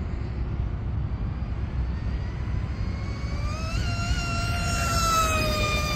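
Electric RC mono-hull speedboat's brushless motor on a 4S battery at full throttle on a speed pass at around 80 km/h. A high whine rises over the first seconds, peaks about four seconds in, then holds while sinking slowly in pitch, and falls away right at the end as the throttle comes off. Wind rumbles on the microphone underneath.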